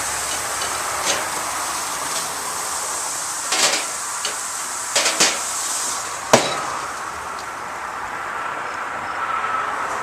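Steaks sizzling on a grill, a steady hiss, with a few sharp metallic clanks and clicks; the loudest comes about six seconds in.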